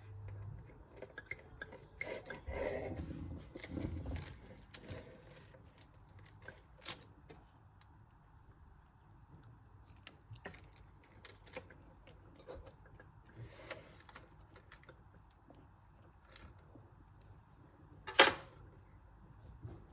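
Faint scattered small clicks and rustles, busier about two to four seconds in, with one sharp click near the end.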